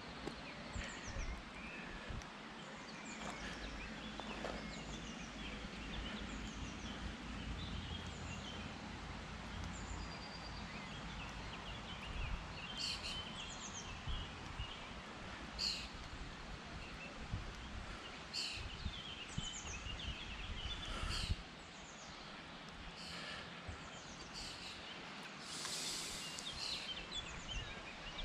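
Small birds chirping and trilling in short, repeated phrases, with a few sharp ticks among them. Under them is a low rumble on the microphone that drops away a little after two-thirds of the way through.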